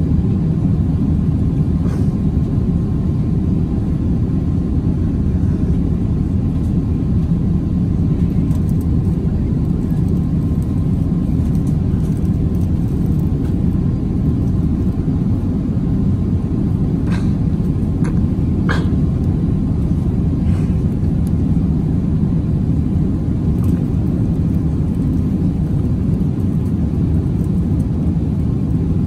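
Steady low rumble of an Airbus A350-900's cabin in flight: its Rolls-Royce Trent XWB engines and airflow over the fuselage, as heard from an economy seat. A few faint clicks about two-thirds of the way through.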